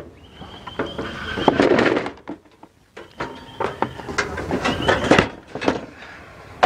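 Hard plastic carry case of a portable twin-burner butane stove being opened and handled. The lid squeaks as it is lifted, with clicks and knocks of plastic, then the metal stove knocks and clatters against the case as it is lifted out.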